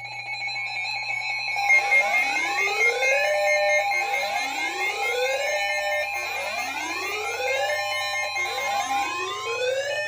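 Several NOAA weather radio receivers sounding a severe thunderstorm warning alert at once. A steady high alert tone runs throughout, and about two seconds in it is joined by a rising whoop siren that repeats about every second and a half.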